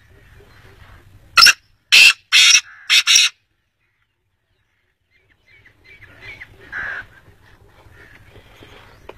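Black francolin calling: a loud phrase of five short notes about a second and a half in, after which the sound cuts off completely for about two seconds before fainter scattered sounds return.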